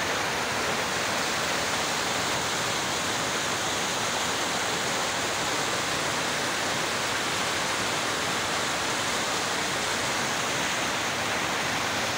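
Stream water cascading down rock chutes and a small waterfall: a steady, unbroken rush of falling water.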